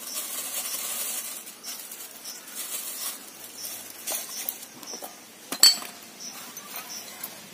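Kitchen utensils scraping and clinking against a bowl as curd is added to the batter, with small scattered clinks and one sharp ringing clink about five and a half seconds in.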